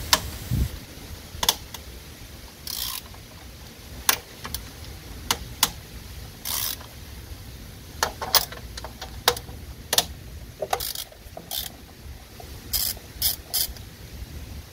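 Hand ratchet with a 13 mm socket clicking in short, irregular bursts, with separate sharp ticks of metal between strokes, as the alternator mounting bolts are loosened.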